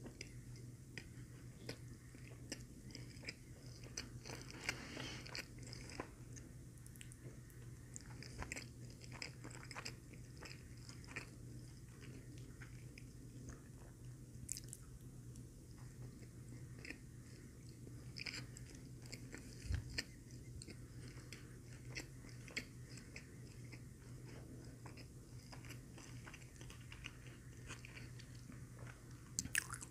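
Close-miked chewing of a McDonald's Filet-O-Fish sandwich: soft, steady wet mouth sounds with many small clicks and smacks.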